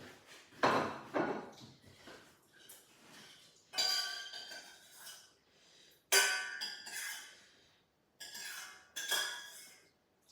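Cutlery clinking and scraping against dishes while eating: a handful of separate clinks, several with a short ring, the loudest a little under a second in and again about six seconds in.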